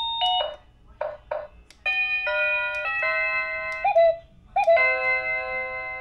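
Wireless driveway alarm receiver playing its chime tunes as its tune button is pressed. First a short two-note ding-dong, then after a brief pause a longer electronic doorbell melody of several held notes.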